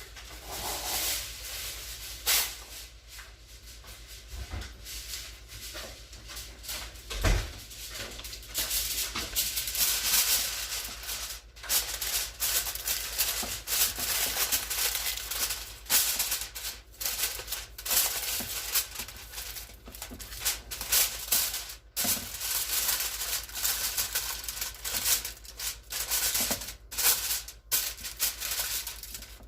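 Aluminum foil crinkling and rustling in irregular bursts as it is torn off and pressed down over a roasting dish.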